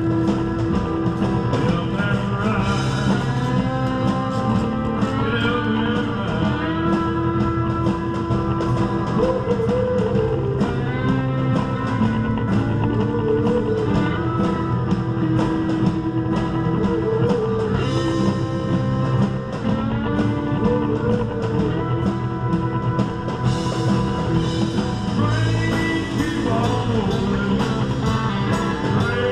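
Live band playing blues-rock with electric guitar, acoustic guitar, drums and a trumpet, loud and continuous.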